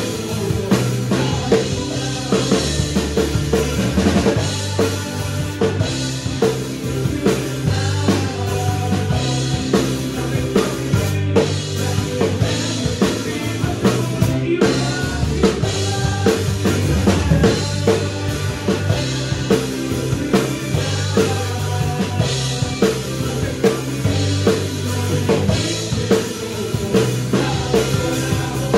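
Acoustic drum kit played in a steady groove, with bass drum, snare and cymbal hits, over a contemporary worship-song backing track with bass.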